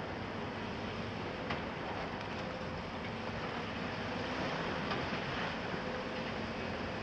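Diesel engine of a Volvo EC300 crawler excavator running steadily as it swings and scoops brick rubble, over a constant hiss of site noise. A few light knocks from the rubble come through.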